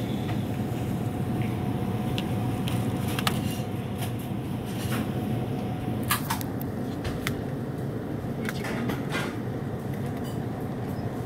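Steady low hum of a supermarket's refrigerated meat case and store machinery, with a faint held tone, broken by a few scattered clicks and crinkles as a plastic-wrapped tray of chicken is handled.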